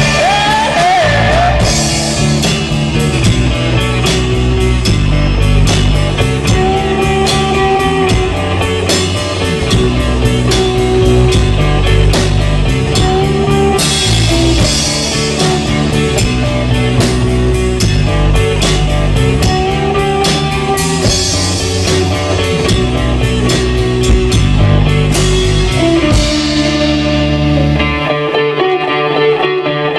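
Live rock band with electric guitars, bass guitar and drum kit playing a loud instrumental passage, with cymbal crashes over a steady beat. Near the end the drums and bass drop out, leaving an electric guitar playing alone.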